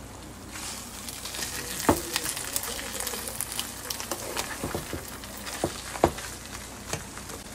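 Spinach and shrimp sizzling in a frying pan on the stove: a steady crackling sizzle with scattered small pops and two sharper knocks, about two and six seconds in.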